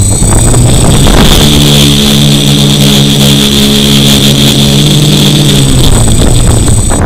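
DJI F450 Flame Wheel quadcopter's four brushless motors and propellers running at full power, recorded from a camera fixed to the frame: a loud, steady buzz with a high electric whine over it as the drone makes a short low hop off the grass and settles back. The motors begin to wind down at the very end.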